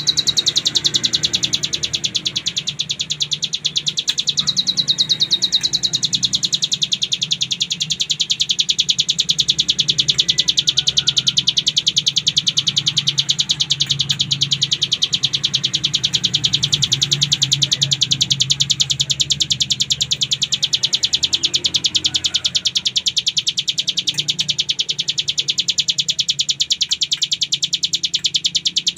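Young ciblek gunung (a prinia) singing a long, unbroken, very rapid high trill in the continuous 'ngebren' style.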